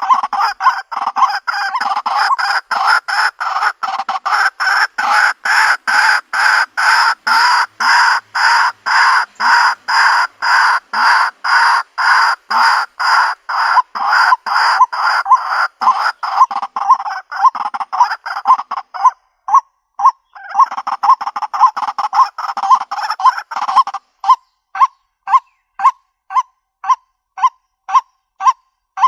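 White-breasted waterhen calling: a loud, repetitive series of harsh croaking notes, about two a second. The run breaks off briefly about two-thirds of the way through, and near the end it turns into shorter, clipped notes.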